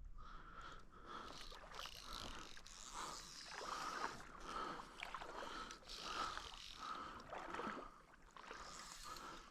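Shallow lake water splashing and sloshing in repeated bursts, about two a second.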